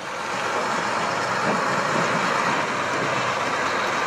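Heavy articulated truck's diesel engine running as it drives slowly over a rutted dirt road. A steady, loud noise that grows over the first half-second and then holds level.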